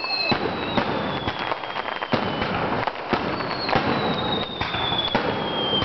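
Fireworks display: a rapid run of bangs and crackles from bursting aerial shells and rising comets, with two long whistles that fall slowly in pitch, one in each half.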